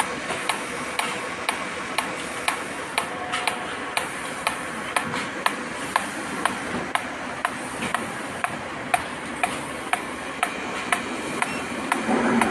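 EMSzero electromagnetic body-sculpting applicator clicking with each magnetic pulse, a sharp click about twice a second over a steady hiss.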